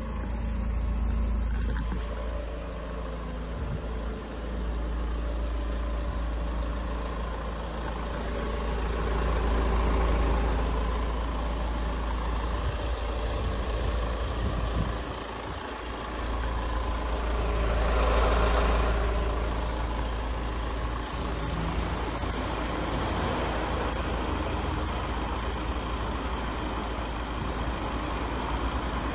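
Steady low rumble of a vehicle engine running, with a brief rushing swell about two-thirds of the way through.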